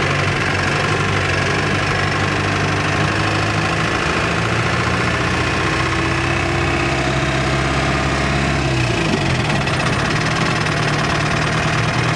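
Engine of a 4x4 off-road truck heard from inside the cab, running steadily along a dirt track. The engine note shifts about nine seconds in.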